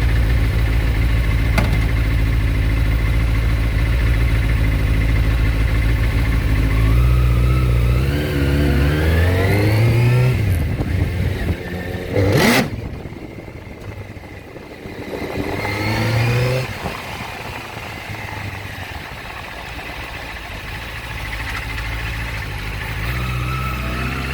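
Suzuki GSX-R 600's inline-four engine running steadily, then revved up a few times and dropping back, with a brief sharp sound near the middle. The owner presents the bike as making a grinding noise.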